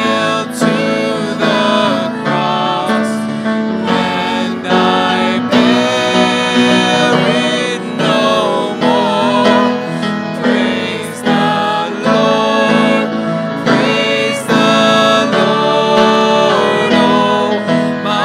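Worship band playing a slow hymn: male and female voices singing the melody over grand piano and violin.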